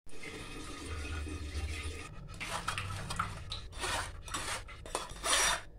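Steel spoon scraping and stirring tamarind pulp against a wire-mesh strainer over a steel bowl, pressing the juice through. The scraping strokes are irregular and grow sharper and more frequent from about two seconds in.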